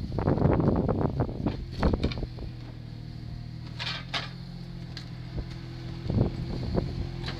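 Compact telescopic loader's engine running steadily while its forks push a heavy sawn log over a gravel track: crunching and scraping for the first two seconds or so, then mostly the steady engine hum, with a short hiss about four seconds in and a knock a little after six seconds.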